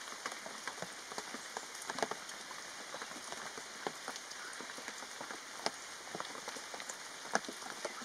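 Heavy rain pouring down: a steady hiss broken by many sharp, irregular drop strikes.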